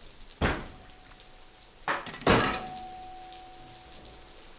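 Sharp knocks of metal kitchenware being struck, three in all. The last, about two seconds in, leaves a steady metallic ring that slowly fades.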